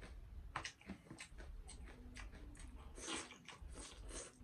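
Close-miked mouth sounds of a person eating pork trotters and rice by hand: irregular wet smacks and clicks of chewing, the loudest about three seconds in.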